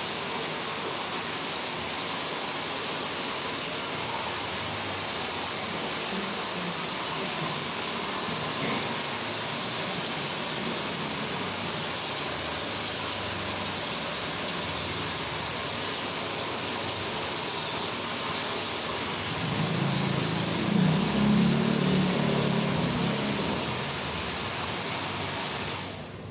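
Handheld hair dryer blowing a steady rush of air while hair is being blow-dried. It grows louder for a few seconds near the end, then cuts off suddenly as it is switched off.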